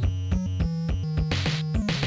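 Background 8-bit chiptune music with a fast, steady beat and a repeating bass line, and a bright noisy swell near the end.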